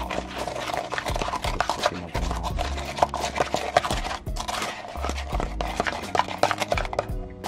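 A spoon clacking quickly and irregularly against the inside of a cup as a raw egg is stirred, over background music with a low bass line.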